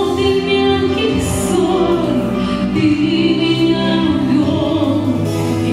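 A woman singing into a handheld microphone, holding long, sustained notes over an instrumental accompaniment.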